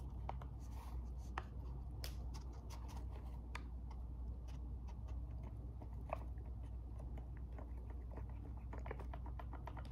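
A paper packet of powder hair lightener crinkling as gloved hands shake and squeeze it out into a plastic mixing bowl, with scattered light ticks that come thicker near the end, over a steady low hum.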